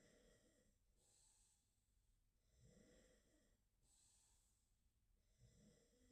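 A sleeping dog snoring faintly: a rasping snore on each in-breath, three times about three seconds apart, each followed by an airy out-breath.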